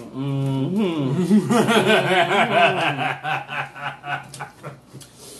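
A man laughing: a long run of chuckling and snickering that dies away after about four and a half seconds.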